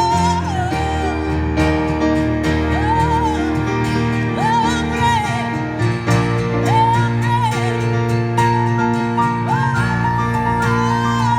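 A live rock band playing the closing section of a song: sustained chords and bass under a melody of long, wavering held notes.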